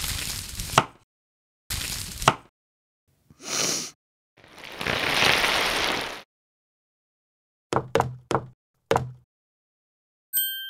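Kitchen knife slicing through an onion and striking the cutting board twice, each cut a short crunch ending in a sharp tap. A brief hiss and then a longer rush of noise follow, then four quick knocks, and a bright ringing tone starts near the end.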